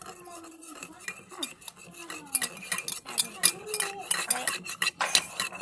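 A spoon stirring lemon juice and sweet soy sauce together, clinking against the cup in quick repeated taps that get busier about two seconds in.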